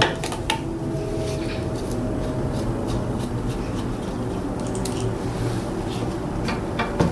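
Metal hand tools and brake parts clicking sharply a few times: twice at the start about half a second apart and twice near the end. Under them runs a steady low hum.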